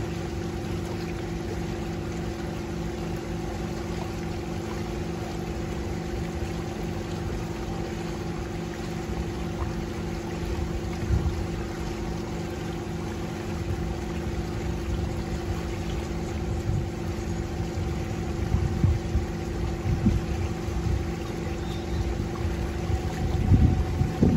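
Small harbour boat's motor running at a steady cruise, a constant hum. Gusts of wind rumble on the microphone now and then, strongest near the end.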